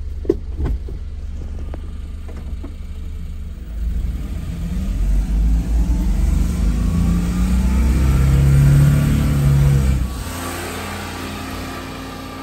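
A few sharp clicks in the first three seconds, then a 1993 Daihatsu Hijet kei truck's small three-cylinder engine revving up and pulling under load, rising in pitch and growing louder until it eases off sharply about ten seconds in and fades.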